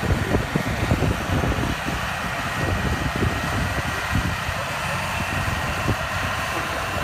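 Tractor's diesel engine running steadily, with wind buffeting the microphone in irregular low gusts.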